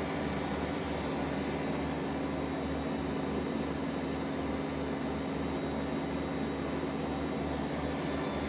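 Mori Seiki NLX-2500 CNC lathe running under power: a steady mechanical hum with one constant mid-pitched tone and a pulsing low rumble beneath it.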